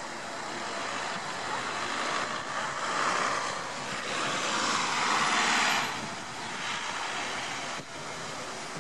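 Road traffic passing: steady tyre and engine noise of cars on the road, swelling as a vehicle passes close and falling away again about six seconds in.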